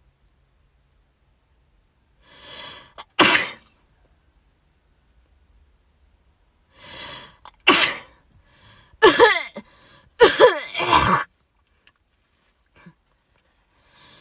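A young woman sneezing. A breath drawn in is followed by a sharp sneeze about three seconds in, then another in-breath and a sneeze near eight seconds. A quick run of voiced sneezes comes between about nine and eleven seconds.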